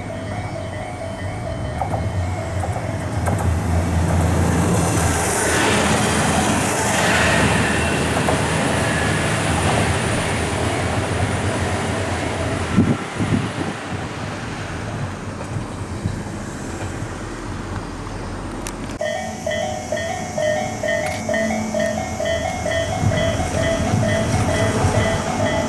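Railroad crossing warning alarm ringing in a rapidly repeating tone pattern while a train passes through. The train's rumble and wheel noise drown out the alarm for most of the time. After an abrupt cut near the end, the alarm rings on its own again.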